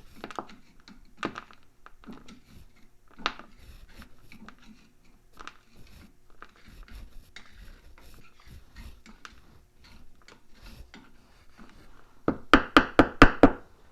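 Scattered light clicks and knocks of metal parts being handled, then near the end a quick run of about six sharp metallic clinks as loose metal pieces rattle together. These are fragments of the ATV's broken rear driveshaft U-joint.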